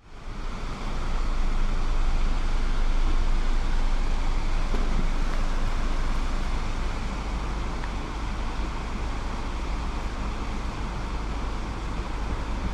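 Urban outdoor ambience: steady distant traffic noise with a heavy low rumble. It fades in over the first second or two, then holds steady.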